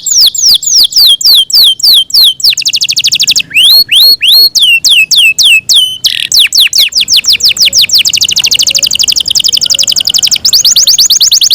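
Yorkshire canary singing loudly: rapid rolling trills alternating with runs of quick falling whistled notes, with a few rising notes about four seconds in and a long fast trill in the second half.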